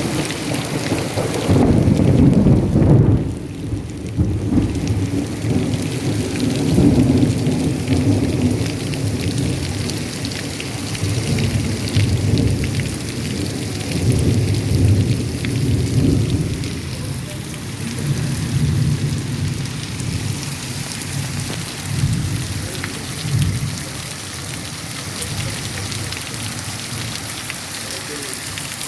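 Heavy rain falling steadily, with rolling thunder rumbling low underneath. The rumble is loudest about two to three seconds in and swells again several times.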